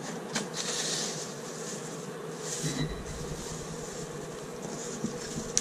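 Rigid foam insulation board being handled and bent, with short rustles and scrapes of the foam, then a sharp crack right at the end as it starts to snap along its perforation.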